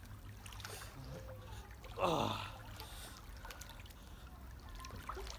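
Water sloshing gently in a small inflatable pool as people shift in it, with a brief falling vocal sound about two seconds in.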